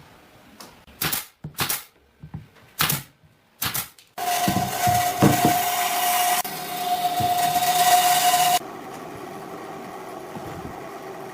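A few sharp knocks, then a power tool starts up loudly with a steady whine. It runs for about four seconds and cuts off abruptly, leaving a quieter steady hum.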